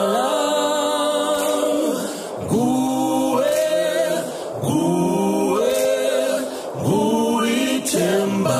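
A cappella choral singing: several voices hold sustained chords in phrases of about two seconds, each phrase starting with a rising slide and dipping briefly before the next.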